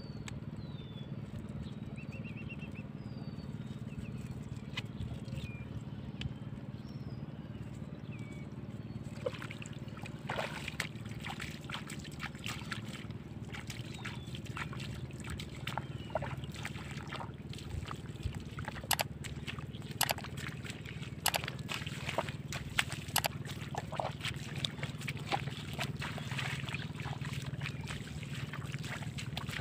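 Splashing and sloshing of feet and hands in shallow, muddy pond water as someone wades and reaches into the water, starting about nine seconds in and going on in many short splashes. Small birds chirp during the first several seconds over a steady low rumble.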